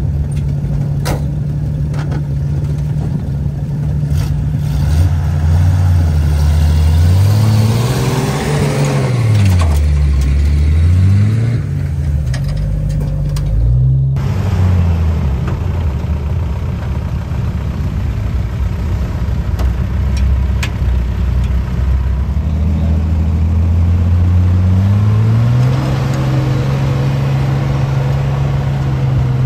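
Truck engine running and revving up and down several times during an off-road recovery pull in sand, with steadier running after an abrupt change about halfway through.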